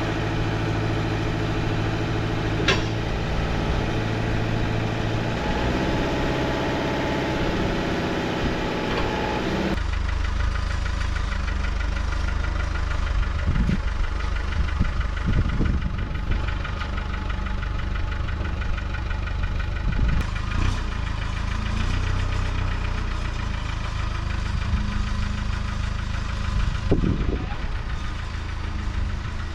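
Tractor engine running steadily, with a few separate sharp knocks over it; the engine tone changes abruptly about ten seconds in.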